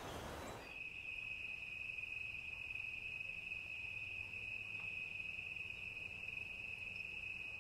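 A soft outdoor hiss, then, under a second in, a faint steady high-pitched trill of a cricket singing at night, held unbroken without any change in pitch.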